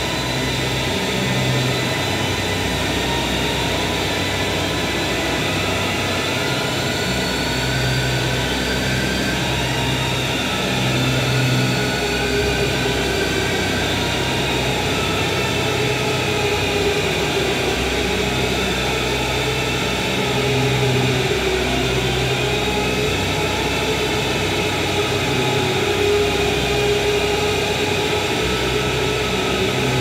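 Experimental drone music with a bowed violin: a dense, steady wash of noise with slowly gliding high tones over it. A held middle note comes in about twelve seconds in, and a low hum swells and fades every few seconds.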